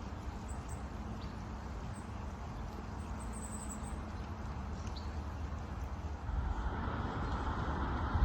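Outdoor ambience: a low, uneven rumble like wind on the microphone over a steady hiss that grows louder after about six seconds, with a few faint high chirps.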